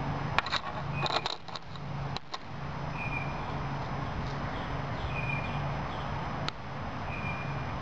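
A few light metallic clicks and clinks from expanded copper hollow-point bullets being handled and set down on a table, clustered in the first two and a half seconds, with one more click near the end.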